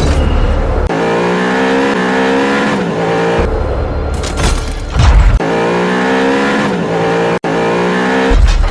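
Edited intro audio: car engine revving sounds mixed with music and deep bass hits. The engine sound falls away in pitch twice.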